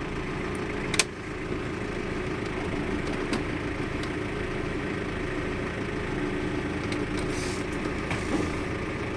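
Twin Volvo Penta TAMD30 marine diesel engines idling steadily, running smoothly, with a single sharp click about a second in.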